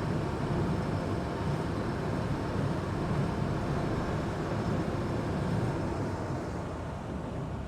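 Amphibious Duck boat's engine running steadily as it cruises on the river, heard from aboard as a constant low rumble.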